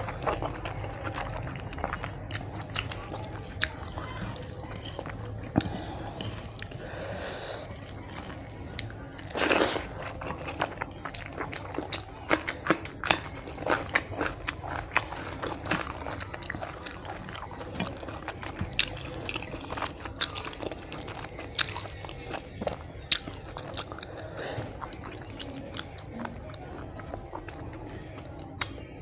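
Close-up wet chewing and lip-smacking of someone eating rice mixed with fish curry by hand, with frequent irregular sharp mouth clicks. A longer, louder noisy burst comes about ten seconds in.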